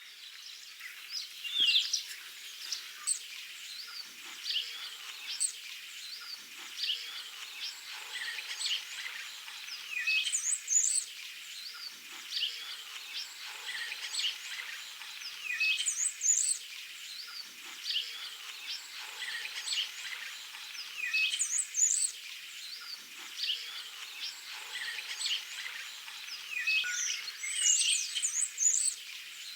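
Several songbirds singing and chirping together, with one bird repeating a short, high song phrase about every five or six seconds.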